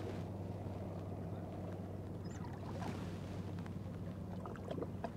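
Steady low wash of sea water and wind around shoreline rocks, with a few faint clicks near the end.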